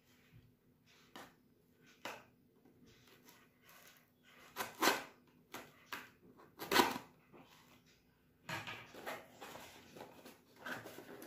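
A taped cardboard parcel being torn open by hand: scattered short rips of packing tape and cardboard, two louder tears about five and seven seconds in, then steadier rustling and tearing of the cardboard near the end.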